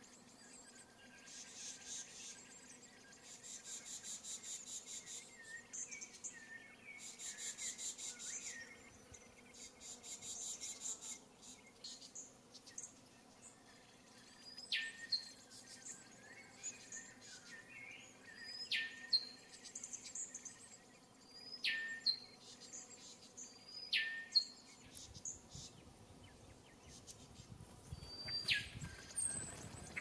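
Common blackbird nestlings begging: bouts of rapid, buzzy high calls with soft chirps during the first ten seconds or so. These are followed by five sharp high calls, a few seconds apart, each dropping steeply in pitch.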